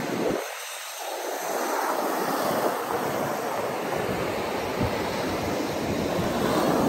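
Ocean surf washing onto a sandy beach, a steady hiss and rumble of breaking waves, with wind buffeting the microphone.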